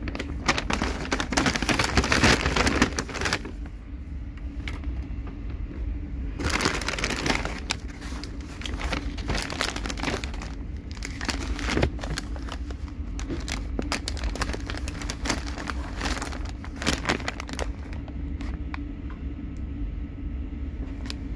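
Paper bag and greaseproof paper wrapping crinkling and rustling as a wrapped focaccia is handled and unwrapped. It comes in bouts, densest in the first few seconds and again around seven seconds in, then thinner crackles, over a steady low hum.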